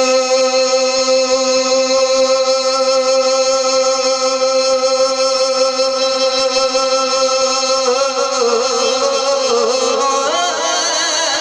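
A male naat reciter holds one long sung note, unaccompanied. About eight seconds in it breaks into wavering ornaments that move up in pitch.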